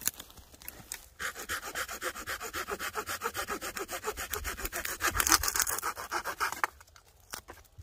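A hand saw cutting through a woody shrub stem in rapid back-and-forth strokes, starting about a second in and stopping near the end.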